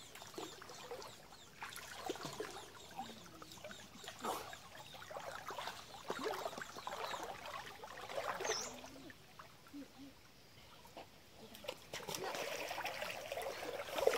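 Shallow creek water trickling and sloshing around a person wading in it, with small irregular splashes.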